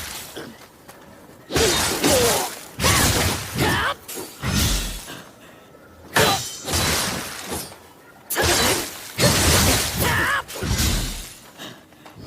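Spear combat sound effects: a string of about ten sharp clashes and impacts with irregular gaps, each dying away within about half a second.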